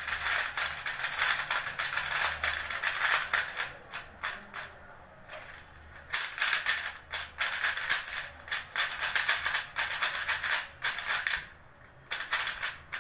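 MoYu RS3M 2020 magnetic 3x3 speed cube being turned quickly by hand: a dense run of plastic clicks and clacks as the layers snap into place, easing off for a moment about four seconds in and again near the end.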